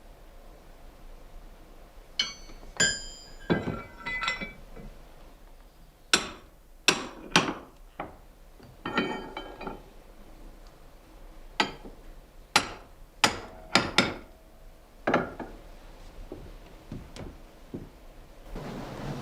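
Hammer blows on metal, about a dozen irregular strikes, the first few ringing with a clear metallic tone. A steady rushing noise starts near the end.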